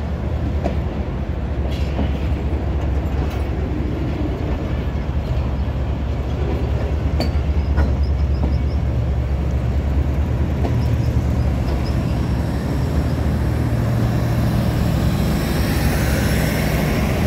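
Diesel locomotive engine running with a steady low rumble beside the coaches of a passenger train, with a few light clicks and clanks.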